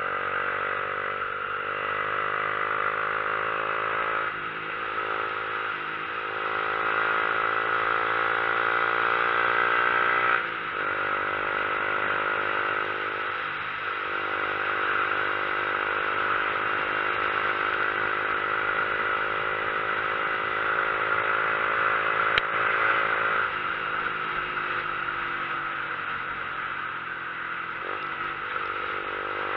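Motorcycle engine pulling up a mountain road, its pitch climbing slowly and dropping at each of several gear changes, over a steady rush of wind. A single sharp click about three quarters of the way through.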